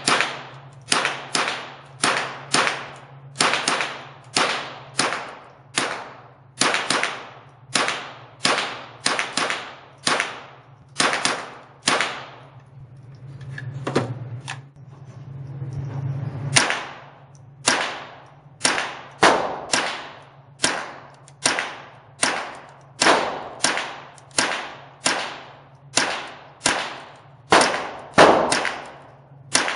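Smith & Wesson M&P 15-22 semi-automatic .22 LR rifle firing a long string of shots, about one to two a second, each crack echoing in an indoor range. There is a break of a few seconds in the middle, then the shooting resumes at the same pace.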